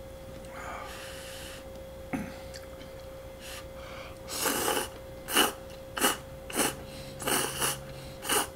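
A man slurping instant cup noodles with chopsticks: about six quick, loud slurps from about four seconds in, the first one longer.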